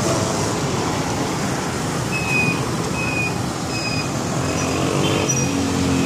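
Busy street traffic: a steady noise of passing cars, motorbikes and rickshaws, with a few short high tones repeating in the middle and a low engine drone growing louder near the end.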